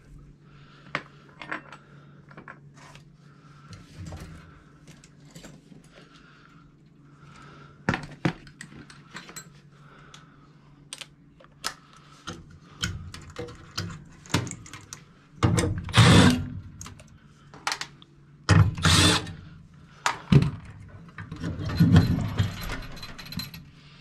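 Clicks, clinks and knocks of tools and sheet-metal furnace parts being handled as the gas valve and its wiring are taken off a Coleman gas furnace. Several louder rattling bursts come in the second half.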